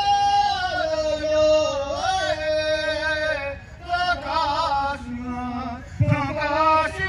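A man singing a pow-wow honor song solo, without a drum, in long high held notes that step downward phrase by phrase. A short breath break comes about four seconds in, and a loud new phrase starts about six seconds in.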